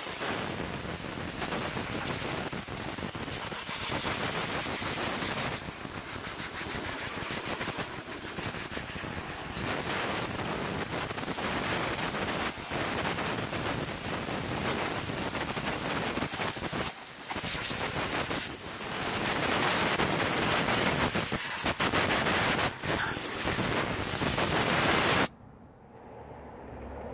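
Compressed-air blow gun hissing as it blasts dust and dirt off a rusty lawnmower, with a few brief breaks in the stream. It gets louder in the last several seconds, then cuts off abruptly about two seconds before the end.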